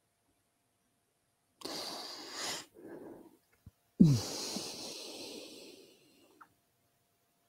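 A person draws a deep, audible breath. About four seconds in, they let out a sudden loud exhalation with a brief falling vocal tone, which fades over a couple of seconds.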